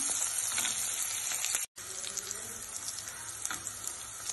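Crushed small onions (shallots) sizzling in hot oil in a steel pressure cooker as they sauté, stirred with a wooden spatula that scrapes the pan now and then. The sizzle cuts out for an instant about a second and a half in.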